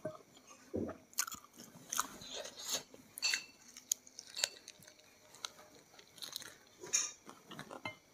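Close-up eating sounds: a person chewing and biting into crunchy fried food, with irregular crackly crunches.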